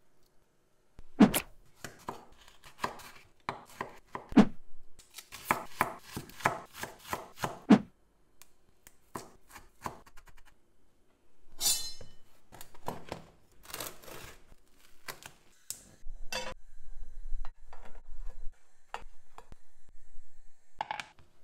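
Chef's knife chopping fresh parsley on a bamboo cutting board: runs of quick, sharp taps with knocks and scrapes between them. A brief hiss comes about halfway through, and a low rumble near the end.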